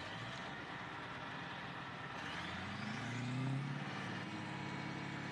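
A motor vehicle engine over a steady noisy background, revving up about two seconds in with a rising pitch, then running steadily.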